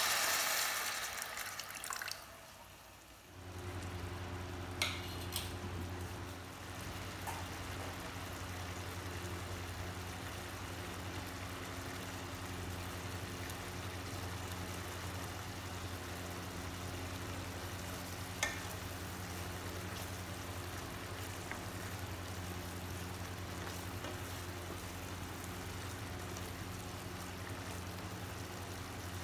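Pieces of citron fried in oil sizzle loudly as tamarind juice is poured into the pan; the sizzle dies away within the first couple of seconds. Then the curry simmers with a light, even hiss over a steady low hum, with a few light clicks.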